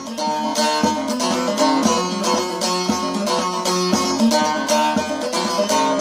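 Bağlama (long-necked Turkish saz) played alone with rapid plectrum strokes, a quick melody over steady sustained open-string notes.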